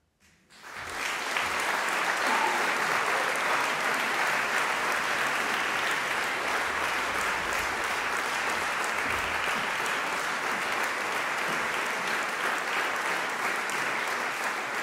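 Audience applause breaking out about half a second in at the end of a performance and holding steady.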